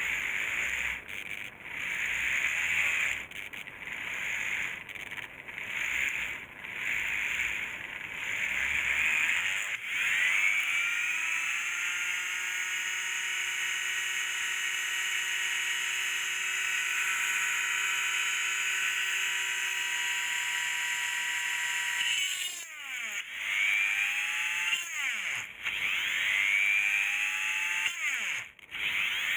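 Small electric motor running: first uneven pulses about once a second, then it spins up with a rising whine, holds a steady speed for about twelve seconds and winds down, followed by two shorter spin-ups that each wind down again.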